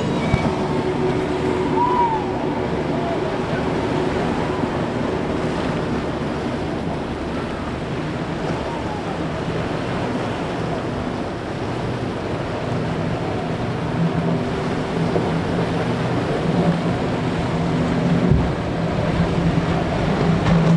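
Waves and surf with wind on the microphone, and the steady hum of powerboat engines, which grows stronger over the last several seconds.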